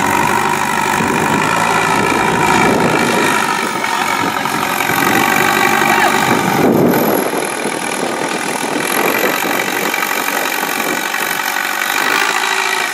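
Diesel engine of a JCB 3CX backhoe loader running steadily, with an even engine note throughout.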